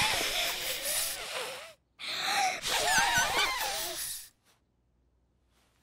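A young child's voice blowing hard into a small deflated balloon in two long, breathy, straining puffs with squeaky wavering tones, without getting it to inflate.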